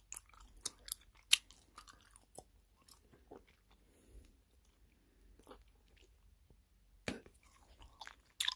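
Close-up of a person chewing bubble gum with the mouth open: irregular wet smacks and clicks, with a few sharper snaps about a second in and near the end.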